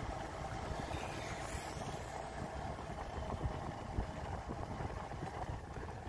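A vehicle's engine running steadily while travelling over a rough gravel road, heard from on board as a continuous low rumble with road and wind noise.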